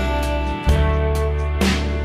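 Background instrumental music with guitar, held notes over a steady pulse.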